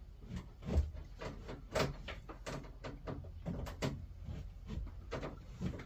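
Irregular clicks, knocks and scraping from hands-on work, a few sharp taps a second, over a low background rumble.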